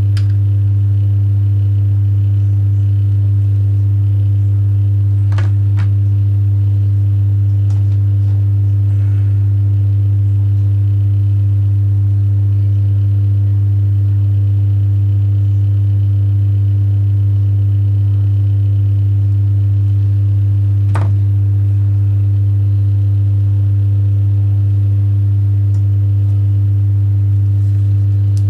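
Loud, steady low electrical hum: one deep tone with fainter higher overtones, unchanging throughout. Two faint clicks come through, about five seconds in and again about twenty-one seconds in.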